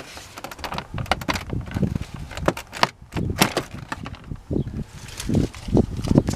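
UAZ Patriot's plastic dashboard trim cover being pulled off its retaining clips, with a series of plastic clicks and snaps and several duller knocks as the panel comes free.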